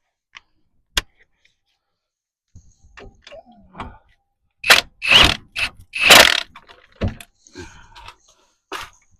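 Ratchet wrench clicking in short runs and metal tools knocking while the brake caliper bolts are run in: a sharp click about a second in, then loud bursts of ratcheting between about five and six and a half seconds.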